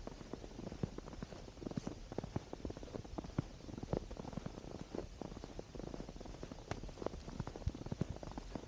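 Footsteps crunching through snow, a steady run of irregular crunches and crackles with a low rumble underneath.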